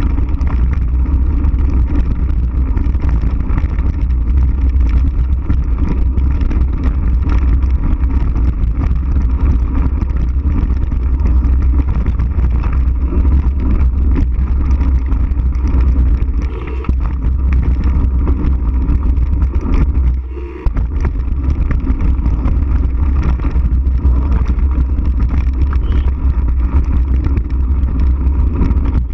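Wind buffeting a bike-mounted action camera's microphone as a steady low rumble, mixed with mountain-bike tyres rolling over hard-packed dirt and the bike rattling on a fast descent. The noise dips briefly twice in the second half.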